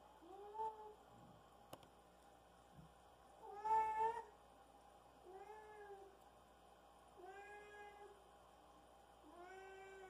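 A cat meowing repeatedly: five drawn-out meows a couple of seconds apart, each rising and then falling in pitch, the loudest about four seconds in.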